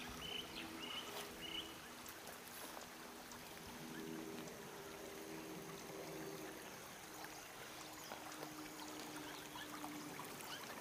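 Shallow water trickling along a concrete drainage channel, a faint steady wash.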